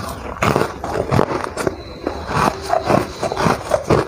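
Frosty ice being bitten and chewed close to a clip-on microphone: a quick, irregular run of crisp crunches.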